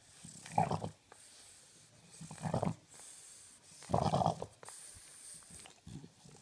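A French bulldog making three loud, rough grunting breaths about a second and a half apart, with a fainter one near the end.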